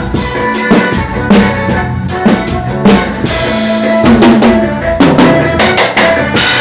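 Live band music led by a drum kit: kick, snare and rimshot hits in a quick dance rhythm over steady bass and other sustained notes, with a cymbal crash a little past halfway.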